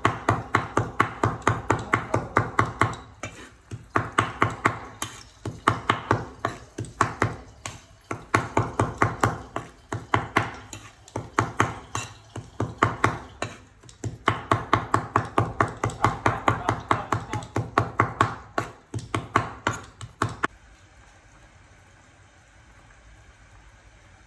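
Cleaver rapidly chopping and mincing green herbs on a round wooden chopping board, about five or six strikes a second in runs broken by short pauses. The chopping stops about 20 seconds in.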